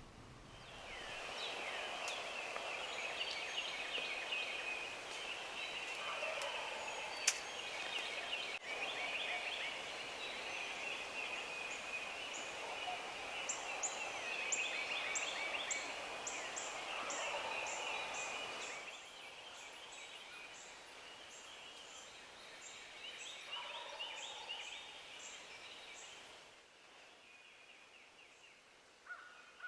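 Wild turkey gobbling in hardwood woods over a dense dawn chorus of songbirds. The chorus drops off abruptly twice, at about 19 and 26 seconds in.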